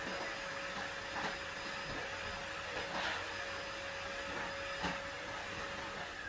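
A steady mechanical hum and hiss, with a few soft knocks and scrapes of a silicone spatula as frosting is scooped from a glass measuring jug and spread on a cake.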